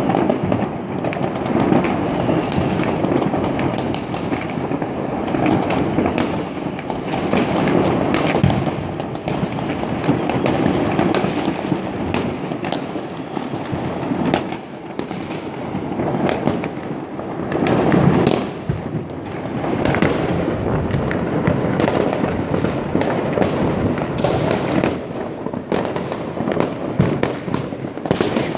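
Many fireworks going off across a town at once: a continuous din of bangs and crackling, with no pause.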